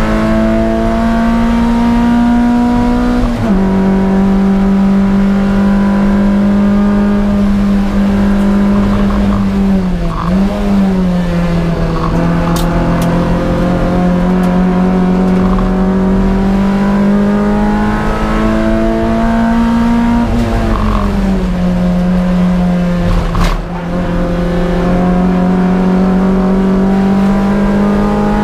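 Toyota MR2 race car's engine running hard, heard from inside the stripped cabin. It holds a nearly steady high note, with the pitch dropping sharply about a few seconds in and again about two-thirds through, and a brief dip and rebound about a third of the way in.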